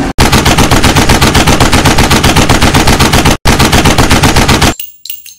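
Machine-gun fire sound effect: rapid shots at about eight a second in two long bursts with a brief break after about three seconds, stopping shortly before the end.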